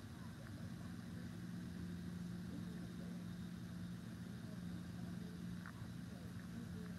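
Faint, steady low mechanical hum, with a few faint ticks over it.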